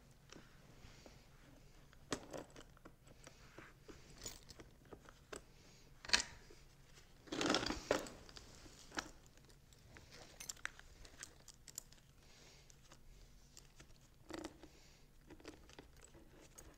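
Sawchain links clicking and rattling as a new chain is worked onto the bar and drive sprocket of a DeWalt battery chainsaw, with scattered small clicks, a sharp click about six seconds in and a louder rattle a second later.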